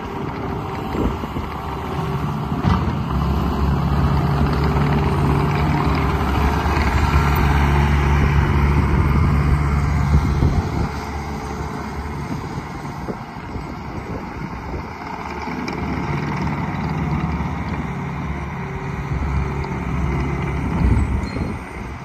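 Bobcat T190 compact track loader's diesel engine running as the machine drives and turns. The engine grows louder for several stretches, one long one early and another near the end, then settles back.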